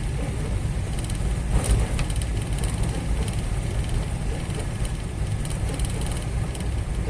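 Steady low rumble of a camper van's engine and tyres heard inside the cab while driving on a wet road.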